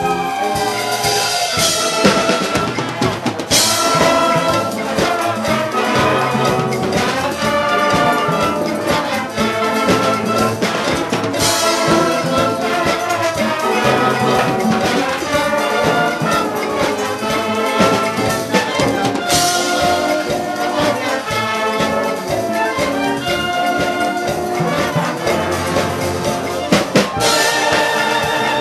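Concert band playing a lively piece: brass carries the melody over drum kit and percussion, with loud accented crashes every several seconds.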